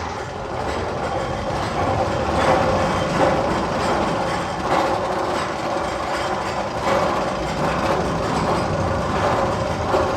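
Steady rail-like rumbling and clattering with irregular knocks about once a second, one of the roller coaster tunnel's sound effects.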